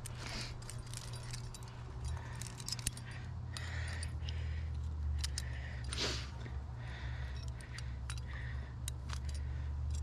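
Metal trad climbing gear racked on a harness, carabiners and cams, clinking and jangling in scattered clicks as the climber moves, over a steady low rumble.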